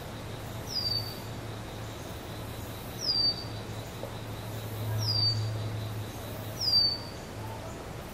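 A songbird repeating a short, high call that slurs downward, four times about two seconds apart, over a faint steady low hum.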